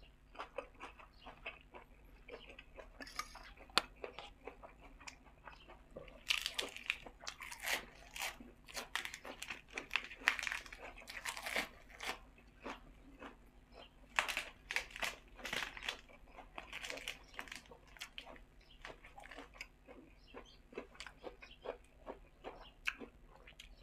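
A person chewing and crunching mouthfuls of spicy pork sai-tan salad (pig's uterus) and fresh greens, with many irregular crackles and wet mouth sounds. The crunching is loudest through the middle stretch.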